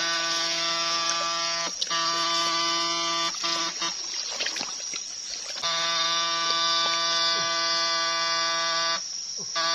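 Backpack electrofishing unit (fish shocker) giving off a steady, high-pitched electrical buzz while its current is switched on. The buzz cuts off and restarts abruptly, with two short breaks early on, a pause of nearly two seconds midway and another break near the end. Water sloshes underneath from wading.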